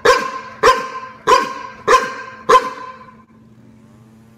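Dog barking in a steady series, five loud barks about two-thirds of a second apart, stopping about three seconds in. A faint steady low hum continues underneath.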